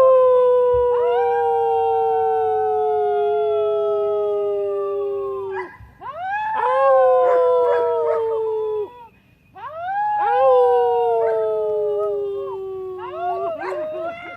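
Howling in several overlapping voices, in three long rounds that each slide slowly down in pitch: people howling to set off the dogs, and dogs howling along.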